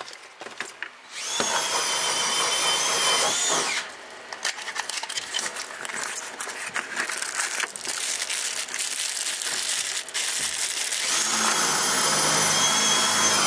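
A power tool's electric motor runs in two spells of a few seconds each, its whine rising in pitch just before it stops each time. Between the spells there is irregular clattering and knocking.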